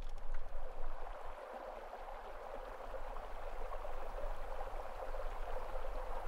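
Flowing water rushing steadily, like a stream, swelling slightly after about three seconds.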